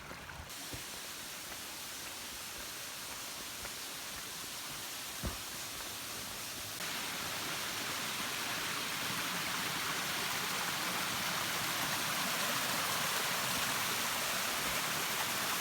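Steady rush of flowing water, an even hiss that gets louder about seven seconds in, with a single brief knock about five seconds in.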